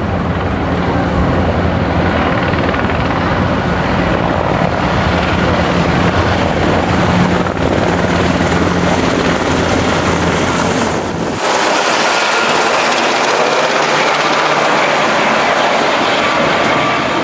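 Two Black Hawk military helicopters flying low overhead: loud, steady rotor and engine noise with a deep rumble that drops away suddenly about eleven seconds in, leaving the higher rush of the rotors.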